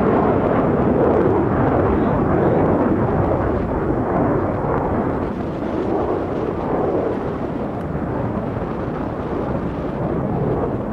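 Jet engines of two Blue Angels F/A-18 Hornets flying toward the listener side by side, heard as a steady, even rumble without high hiss.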